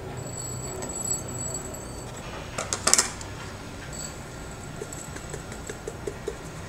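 Glass blender jar clinking against the rim of a bowl as ground rice flour is tipped out of it, with a cluster of sharp clinks about three seconds in and lighter taps near the end.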